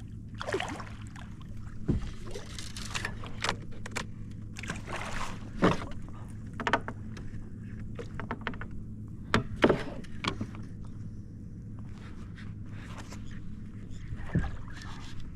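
Irregular splashes and knocks against a kayak hull as a hooked redfish is fought beside the boat, over a steady low hum.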